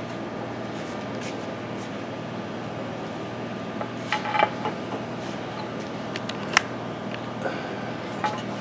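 Light metallic clinks and clanks as a new steering knuckle with hub and splash shield is handled and fitted onto the suspension: a cluster of them about four seconds in and the sharpest clank about six and a half seconds in. A steady hum runs underneath.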